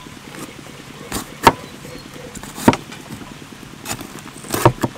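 A steel cleaver cutting down through a crisp green bell pepper onto a wooden chopping board: about five short, sharp, irregularly spaced cuts and knocks, the strongest in the middle of the stretch.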